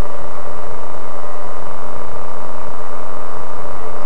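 Small two-stroke nitro glow engine of a Raptor RC helicopter idling steadily on the ground, loud and close to the microphone.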